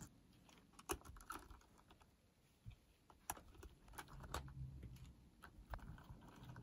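Faint, irregular clicks and taps of a small screwdriver on the tiny machine screws and circuit board of a 1980s cassette player as the screws are undone, with light handling knocks.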